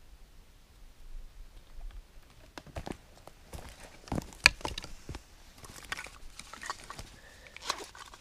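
Irregular knocks, clicks and rustles of someone moving about and crouching on dry forest litter and handling wood and gear by a stone fire pit, with one sharp click about four and a half seconds in.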